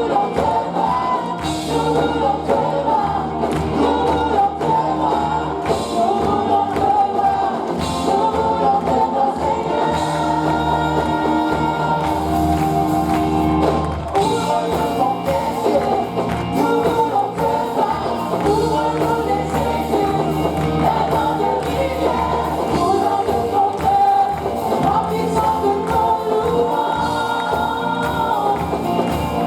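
Congregational gospel worship singing with a live band: voices singing together over bass, drums and tambourine.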